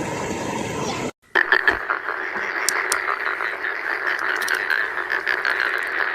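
A dense chorus of many frogs croaking together, a steady mass of rapid calls. It starts after a cut about a second in, which ends a short stretch of steady hiss.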